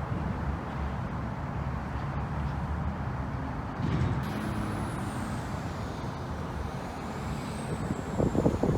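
Steady low rumble of a running vehicle. From about four seconds in a faint high whine glides slowly down, and a run of quick irregular knocks starts near the end.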